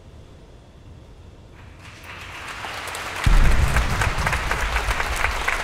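Audience applause that starts about two seconds in and swells to a steady clapping. A loud low thump, about a second long, comes as it grows.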